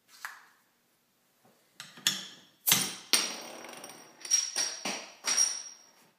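Crown cap pried off a glass bottle of Coca-Cola with the slide-out bottle opener of an Opena iPhone case: a few clicks, then a sharp pop about three seconds in with a short hiss after it. Several lighter clinks follow, with a high ringing tone through them.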